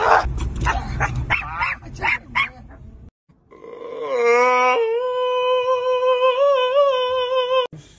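Dogs yipping and yelping in short sharp bursts with scuffling, then after a short break a small dog howling one long held note that wavers slightly in pitch and cuts off just before the end.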